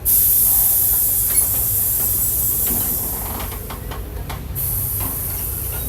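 Compressed air hissing loudly from a Mercedes-Benz OF-1722 bus's pneumatic air system, starting suddenly, easing off after about four and a half seconds and coming back weaker, over the low running of the bus's diesel engine. A few clicks sound just before the hiss drops.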